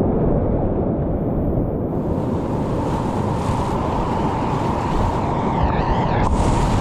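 Rushing whitewater, with wind buffeting the microphone, as a steady loud roar. A faint steady whine joins it about three seconds in.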